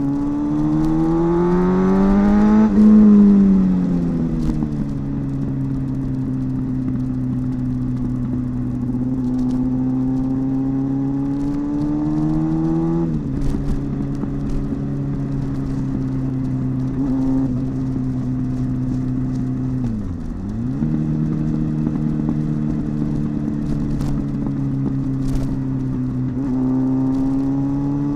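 2014 Jeep Cherokee's 3.2-litre Pentastar V6 running on fresh spark plugs, being checked for a cylinder-one misfire. The revs climb for a few seconds and fall back, climb again and drop sharply about halfway, dip briefly later on, then rise again near the end.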